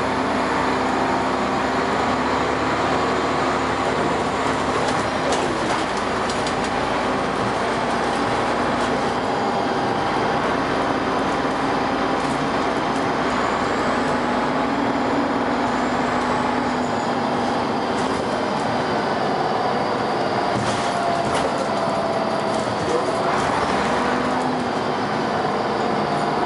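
Dennis Arrow double-deck bus under way: its diesel engine and ZF gearbox running, with steady tones that shift in pitch now and then as the bus changes speed.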